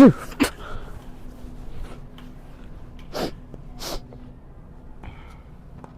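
A man's loud fake sneeze right at the start, its pitch falling, followed about three and four seconds in by two short hissing bursts.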